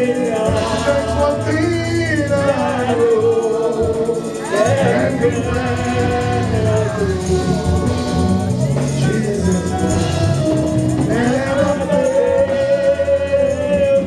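Congregational gospel singing led by a voice, with a band and a steady bass line beneath it.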